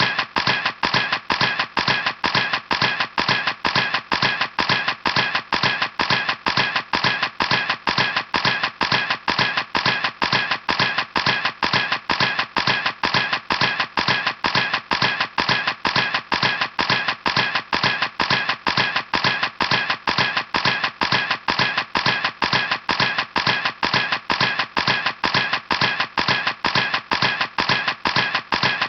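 Camera shutter clicking over and over at an even, unchanging pace, about two to three clicks a second.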